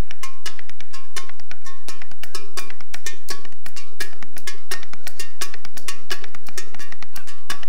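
Fast, dense rhythmic percussion of kitchen knives striking stainless steel bowls and wooden boards: sharp clacks, the steel bowls ringing with metallic tones between strikes.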